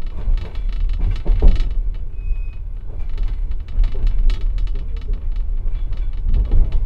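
Passenger train car rolling along: a steady low rumble with irregular knocks and clatter of the wheels over rail joints and points, heard from inside the compartment car.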